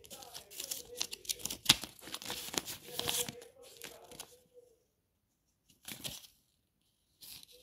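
Paper pages of a thin instruction booklet being flipped and handled: a crinkly rustle with several sharp crackles. It stops about halfway through, with one more brief rustle a second or so later.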